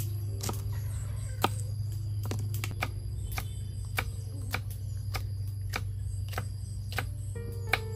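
A kitchen knife slicing green chili peppers on a wooden chopping board: sharp taps of the blade hitting the board at an uneven pace, about two a second. A steady low hum runs underneath.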